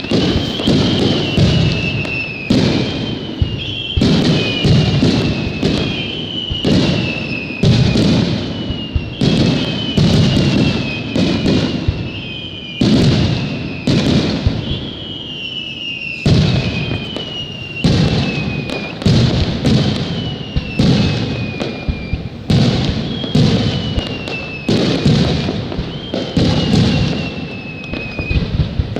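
Aerial firework shells bursting in quick, overlapping succession: a steady barrage of sharp bangs and crackles. A whistling tone sliding down in pitch rises above the bursts every couple of seconds.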